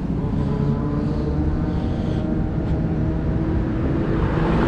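Road traffic: a vehicle engine running steadily, with a car passing close by near the end.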